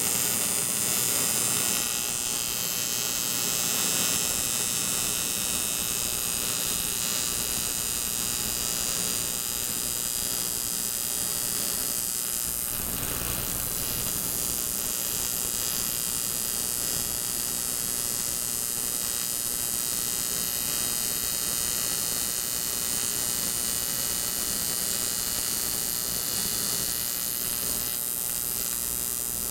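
Steady electrical hum with a high hiss over it, unbroken and even in level, with a brief change in texture about 13 seconds in.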